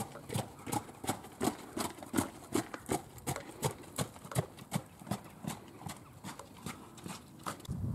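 Hoofbeats of a three-year-old sport horse trotting in hand on a hard gravel yard: an even clip-clop of about three sharp strikes a second, growing fainter in the second half as the horse moves away.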